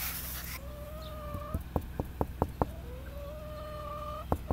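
Hen calling: two long drawn-out notes, each followed by a quick run of short, sharp clucks.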